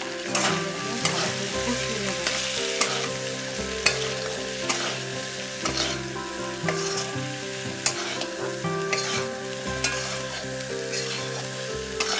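A metal spatula stirs boiled chickpeas and potato pieces frying in oil in a metal kadai. There is a steady sizzle, and the spatula scrapes and knocks against the pan about once a second.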